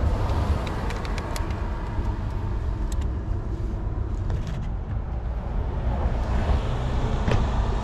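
Steady low background rumble, with a few sharp plastic clicks in the first three seconds as the cap of a motor-oil jug is twisted off.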